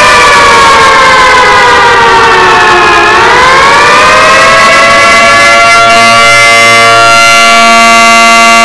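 Loud, buzzy alarm siren rich in overtones, sounding a nuclear alert: its pitch slides down, swings back up about three seconds in, then holds steady.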